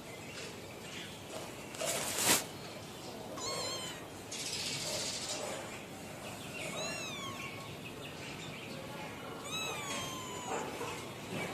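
A cat meowing three times, short arching calls, the last one longer with a falling pitch. A loud knock about two seconds in.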